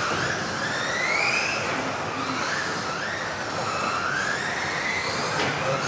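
Several electric RC off-road buggies with brushless modified-class motors racing together, their motor whines overlapping and rising and falling in pitch as the drivers accelerate and brake around the track.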